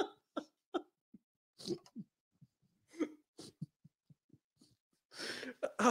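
A woman drinking through a straw: short sips and swallows with quick breaths between them, and a longer breathy exhale near the end.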